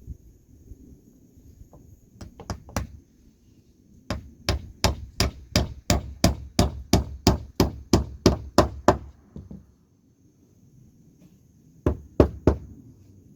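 Hammer striking wood: a few light taps, then a steady run of about fifteen blows at roughly three a second, then three more blows after a pause.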